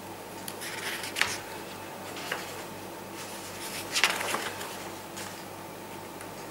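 Quiet room tone with a faint steady hum and a few soft clicks or rustles, about one, two and four seconds in.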